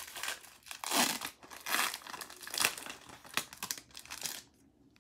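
Foil wrapper of a Pokémon booster pack being torn open and crinkled by hand: a run of irregular crackling rustles, louder about a second in and a few times after, stopping a little before the end.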